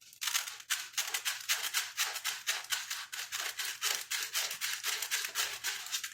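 Sandpaper rubbed back and forth by hand on the splines of a plastic cog, in quick, even rasping strokes of about four a second.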